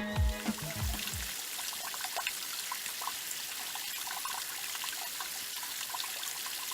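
Background music ending about a second in, then the steady rush of a flowing creek.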